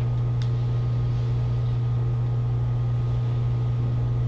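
Steady low electrical hum with a faint hiss over it, and a single faint click about half a second in.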